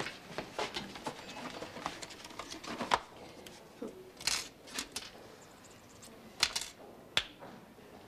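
Hands handling small medical supplies: a run of light clicks and taps, then a few short, crisp rustles.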